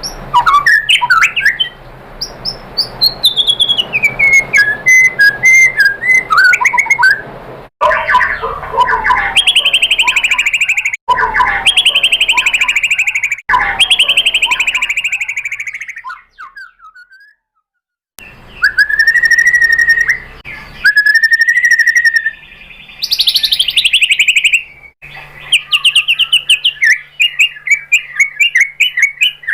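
White-rumped shama (murai batu) singing: clear falling whistles mixed with fast, chattering trills and repeated notes. Abrupt cuts between phrases mark a spliced song recording, with a short pause in the middle.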